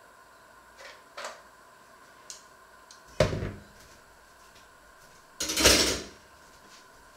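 Kitchen handling noises: a few light clicks, then a sharp knock about three seconds in as an electric hand mixer is set down on a wooden counter. A little after five seconds in comes a louder, half-second clatter.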